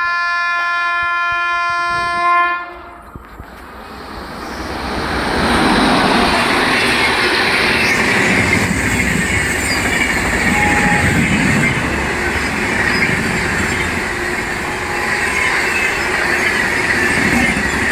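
Shatabdi Express locomotive horn sounding one long blast that ends about two and a half seconds in. The train then passes at high speed: a loud rush of wheels and carriages builds up and holds steady, with the clickety-clack of wheels over rail joints.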